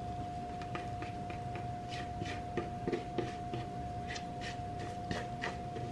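Fingers scraping and rubbing sticky, wet scone dough out of a mixing bowl: a run of short, irregular scrapes that come thicker in the second half. A steady hum sits underneath.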